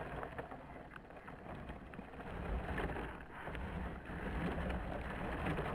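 RC model plane's wheels rolling and bumping over grass with its motor stopped, scattered knocks over a low rumble, with wind on the microphone. It grows louder as the plane rolls closer.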